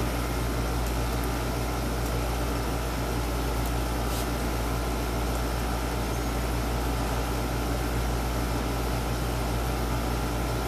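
Steady background hum and hiss that does not change, with one faint tick about four seconds in.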